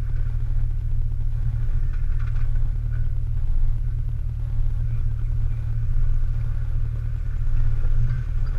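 Off-road 4x4 engine running slowly at low revs, a steady low rumble without revving.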